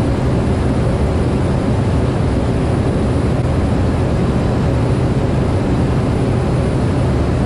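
Steady low drone of a Cessna 208B Grand Caravan's single PT6A turboprop engine and propeller in flight, heard inside the cockpit.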